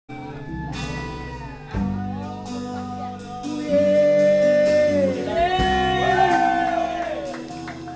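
Live band jamming: bass, strummed guitar chords and drums, with a lead instrument playing long held notes that bend in pitch. The band gets louder about two seconds in and again about four seconds in.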